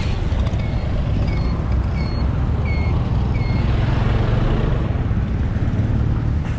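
Close street traffic, with motor vehicle engines running and passing, one growing loud in the middle. A short high chirp repeats evenly, about every two-thirds of a second, through the first half.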